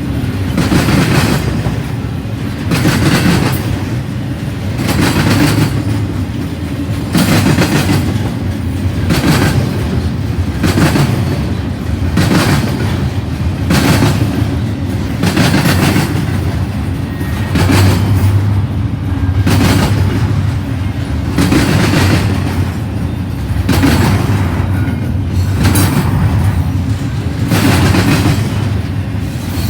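Cars of a CN intermodal freight train rolling past with a steady low rumble, their wheels clacking over rail joints in a regular rhythm, with a louder swell about every two seconds as each car goes by.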